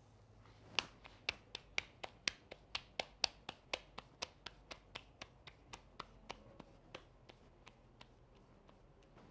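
Corn masa being patted by hand into a tortilla between the palms: a rhythmic slapping of about four pats a second that starts about a second in and grows fainter toward the end.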